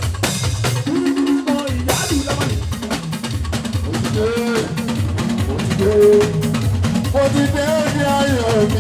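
Live fuji band music: dense, steady drumming and percussion with a gliding melodic line over it.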